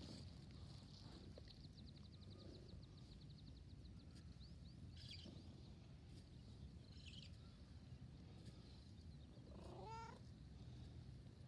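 A cat gives one short meow, rising then falling in pitch, about ten seconds in. Before that, a faint, high, rapid ticking trill slows and fades over the first few seconds against quiet outdoor background.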